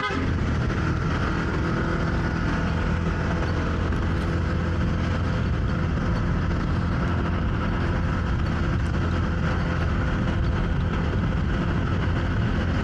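Motorcycle engine running steadily while riding, with steady road and wind noise.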